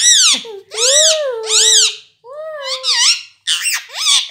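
Rose-ringed parakeet calling: a quick run of about six short, high calls, each rising and falling in pitch.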